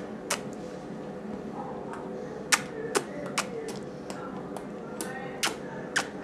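About ten sharp clicks and taps at irregular spacing, the loudest about two and a half seconds in, with a faint voice underneath.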